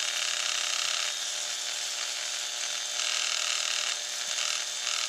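Dremel rotary tool running at about half power, its buffing pad polishing the steel trigger bar of a Glock: a steady motor whine under a hiss of pad on metal that grows and fades as the pad is pressed on.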